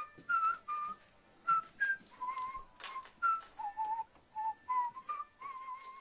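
A whistled tune: short wavering notes that step up and down in pitch, with scattered clicks between them.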